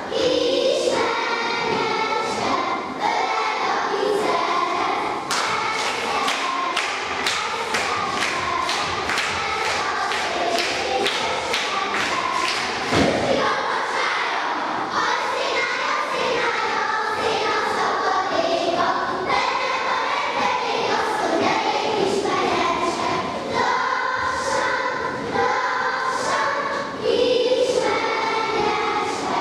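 A group of children singing a Hungarian folk song in unison, with rhythmic stamping of feet on the floor. The stamping comes about two or three times a second and is strongest from about five to thirteen seconds in.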